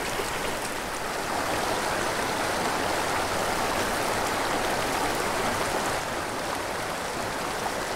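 Small rocky mountain stream running over stones in shallow riffles: a steady, even wash of moving water, slightly quieter for the last couple of seconds.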